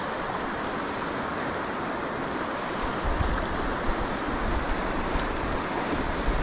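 Steady rushing of river rapids, with wind buffeting the microphone from about three seconds in.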